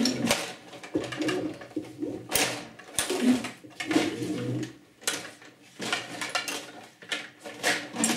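Table hockey in play: irregular sharp clacks of the puck and rod-driven players hitting each other and the board, mixed with short whirs from the robot's electric motors spinning and sliding the player rods.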